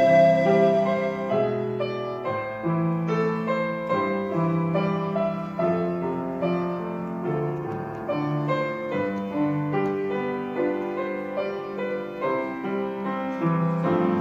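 Piano accompaniment playing a slow hymn passage alone, note after note, after a sustained panflute note fades out about a second in.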